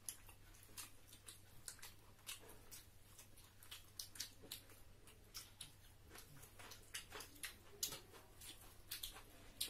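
Quiet eating sounds: scattered faint clicks and smacks of chewing, and of fingers working rice and fish on plates, over a low steady hum.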